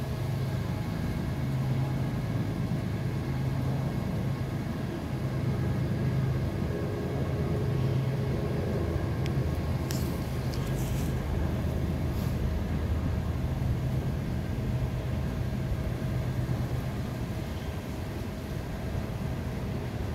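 A steady engine hum with a low drone and a few steady higher tones above it, with a few sharp clicks about ten to twelve seconds in.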